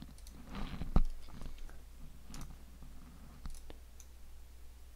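Quiet computer mouse clicks, the sharpest about a second in, over a low steady hum.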